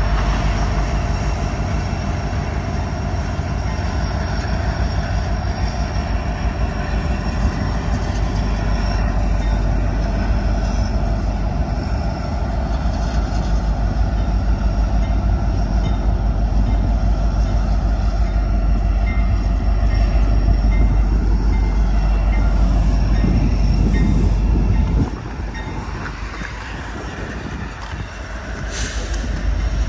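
Norfolk Southern double-stack intermodal freight train rolling past: a steady rumble of wheels on rail with faint steady ringing tones. The sound drops suddenly about 25 seconds in and builds again near the end.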